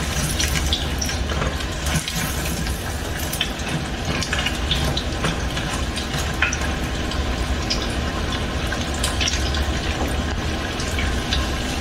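Battered cauliflower pieces deep-frying in hot oil in a stainless steel saucepan: a steady sizzle full of small crackles and pops, turned now and then with a slotted spoon.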